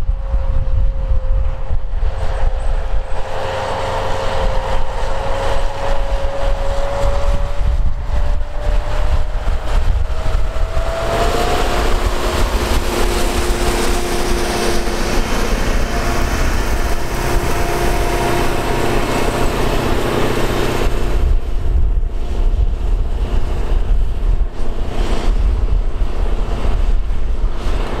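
Heavy tractor engine running steadily under load while pulling a disc harrow, a low rumble with a whine on top. The whine climbs slowly for about ten seconds, then drops to a lower pitch and holds for about ten seconds before fading back into the rumble.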